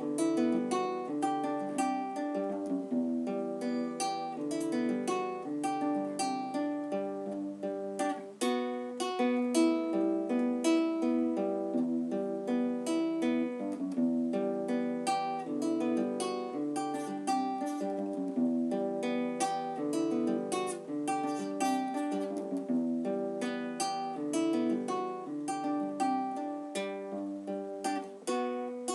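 Cutaway acoustic guitar played solo, a steady run of plucked notes and chords, several a second.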